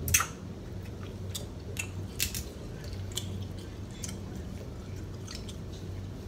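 Snow crab legs being bitten and picked apart by hand: the shell snaps and crackles several times, the sharpest crack right at the start, with a few wet chewing sounds. A low steady hum runs underneath.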